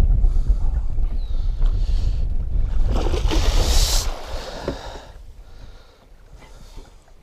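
Water splashing hard at the side of the boat for about a second, around three seconds in, as a musky is netted boatside. It comes over a low rumble of wind on the microphone, which fades about five seconds in.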